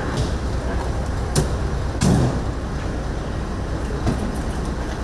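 Steady low rumble of a vehicle engine running, with a few sharp knocks; the loudest thump comes about two seconds in.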